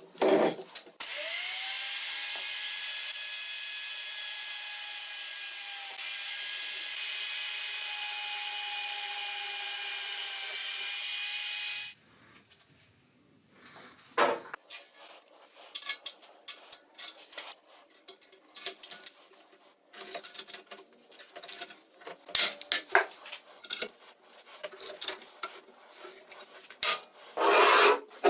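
An electric power tool spins up, runs steadily for about eleven seconds with a high whine over a hiss, then stops suddenly. Scattered clicks and knocks of metal parts being handled follow, with a louder clatter near the end.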